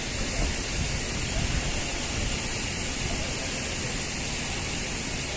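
Steady rushing hiss of water spraying under pressure, with a low rumble underneath.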